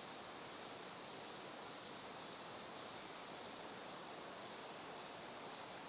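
Steady insect chorus: an even, unbroken high buzz over faint outdoor hiss.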